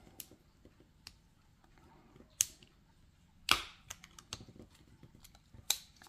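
Steel knife-blade tip prying under the red plastic handle scale of a Victorinox Swiss Army knife, clicking against the scale and the metal liner: a string of irregular sharp clicks, a few of them louder.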